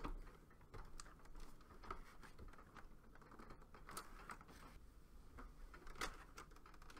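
Faint, irregular small clicks and scrapes of a screwdriver turning the ground screw on a mini-split's terminal block, clamping a stranded ground wire between the washer and the plate.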